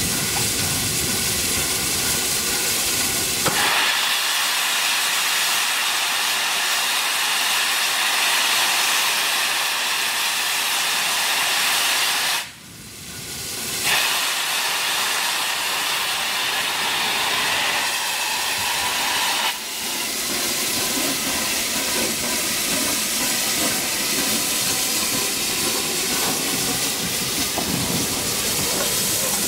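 Steam hissing from the front end of LNER Peppercorn A1 Pacific 60163 Tornado, low by the cylinders. The hiss turns brighter about three and a half seconds in, dips briefly around twelve seconds, and becomes lower and rougher after about twenty seconds as the locomotive starts to move.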